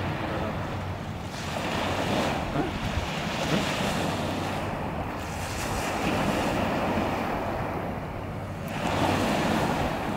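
Small waves breaking and washing up a shingle beach, swelling and fading in several surges, with wind buffeting the microphone.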